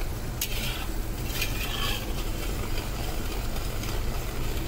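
Metal spatula stirring and scraping through sugar syrup bubbling at the boil in a metal kadai, with a few brief scrapes against the pan.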